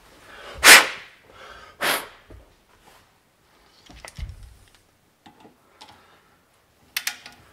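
Two short rushing bursts of noise, then a few light metallic clicks and a dull knock, with a cluster of sharp clicks near the end as a hand tool is set on the camshaft's VANOS gear bolt in a bench vise.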